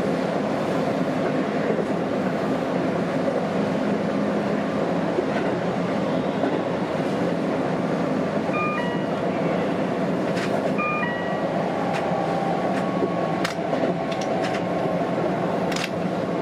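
Keihan electric train running at speed, heard from the driver's cab: a steady rumble of wheels on rail with a low hum from the motors. Two short electronic beeps sound in the cab about nine and eleven seconds in, and a few sharp clicks come near the end.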